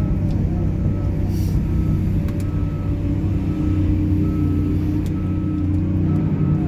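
Heavy diesel machinery running steadily with a deep engine rumble. Over it, a warning alarm beeps over and over, alternating between a higher and a lower tone, like an excavator's travel or reversing alarm.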